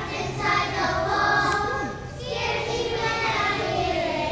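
A group of first-grade children singing a song together, with a short break between phrases about two seconds in.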